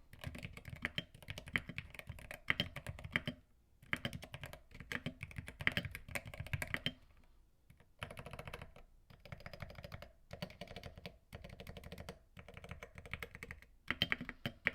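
Typing on a Kzzi G68 aluminium-cased keyboard with magnetic Gateron switches and double-shot PBT keycaps: quick runs of keystrokes in bursts, with a few short pauses. The clicks are quite quiet and pleasant, with the switches unlubricated in stock form.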